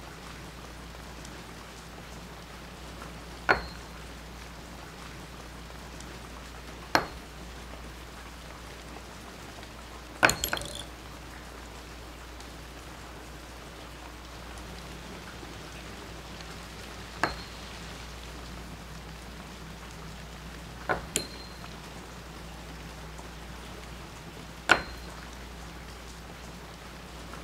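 Steady rain falling, with sharp metallic clinks every few seconds as a ring-toss ring strikes a nail-hook on a wooden post, each clink with a brief ringing tone; two of them come as quick double knocks.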